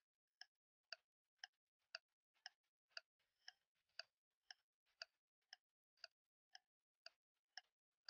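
Faint clock-style ticking of a countdown-timer sound effect, about two ticks a second, evenly spaced.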